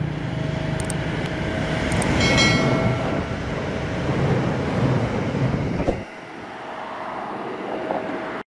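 Electric train running past on the tracks: a steady noise that thins out about six seconds in as the train goes by. A few sharp clicks and a brief high ringing tone come about two seconds in.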